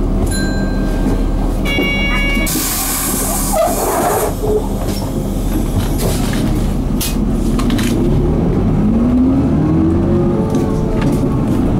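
A Mitsubishi Fuso Aero Midi MK bus's 6M61 straight-six diesel running, heard from inside the bus. There is a brief high tone about two seconds in and a short hiss just after. From about eight seconds the engine revs up with rising pitch as the bus accelerates.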